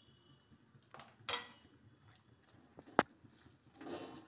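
A spoon stirring chopped bottle gourd and onion in water in an aluminium kadhai: a few short scrapes against the pan, and one sharp clink about three seconds in.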